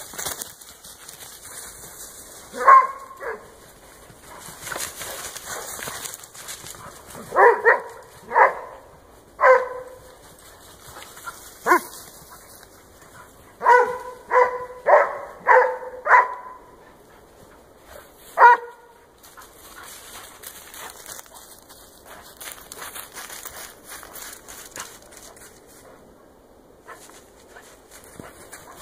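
Dog barking, short barks here and there and a quick run of about five near the middle, with rustling and crunching through snowy brush in between.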